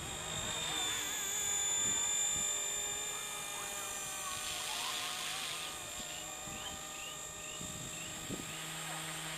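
Micro RC helicopter (Microheli S300C, three-blade head, 2627 brushless motor) flying overhead: a steady high whine of motor and rotors, its pitch wavering with throttle and loudest about two seconds in.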